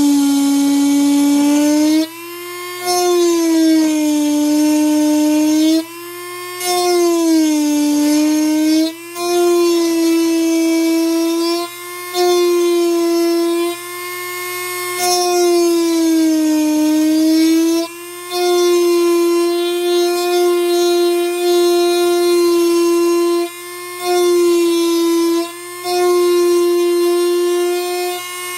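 Small high-speed rotary tool with a conical grinding bit shaping the edge of a guitar saddle: a steady whine whose pitch dips and recovers as it works, broken by short pauses every few seconds.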